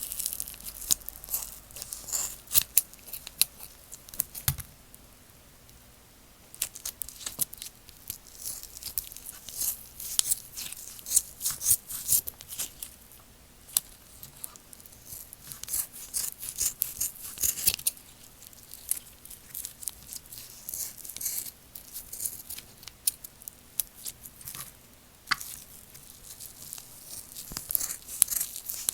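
Slime being squished, stretched and poked, giving off runs of sharp, crackly clicks and pops that come in dense clusters with a few brief pauses.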